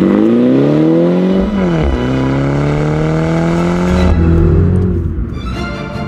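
MINI hatch's turbocharged four-cylinder heard through the JCW Pro exhaust, accelerating hard: the revs climb, drop at an upshift about one and a half seconds in, climb again and fall away at about four seconds. Music comes in near the end.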